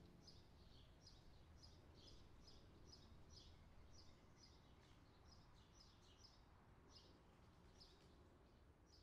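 Near silence with faint, high bird chirps repeating about twice a second.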